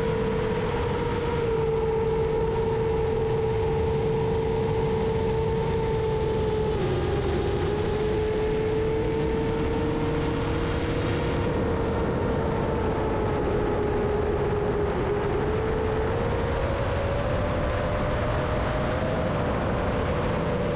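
FPV quadcopter drone's motors and propellers whining at a steady, slowly wandering pitch that rises a little late on, over a constant rushing hiss.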